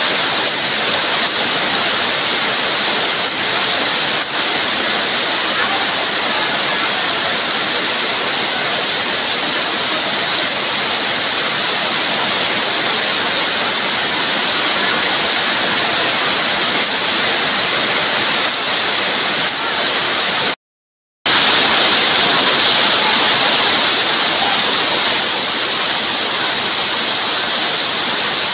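Heavy rain falling steadily in a dense, even hiss. About two-thirds of the way through it cuts out completely for half a second, then comes straight back.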